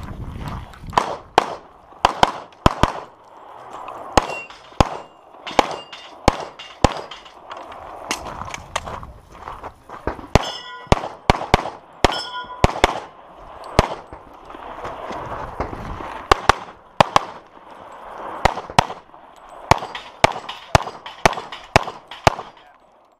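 Pistol shots fired in quick pairs and strings, with short pauses as the shooter moves between positions. A few hits near the middle leave a ringing tone like struck steel targets.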